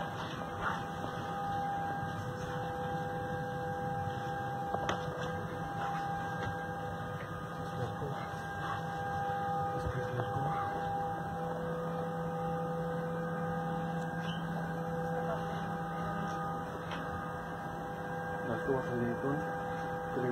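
Steady hum and hiss of the Boeing 787 cabin's air and electrical systems, with several held tones. A faint murmur of voices comes in near the end.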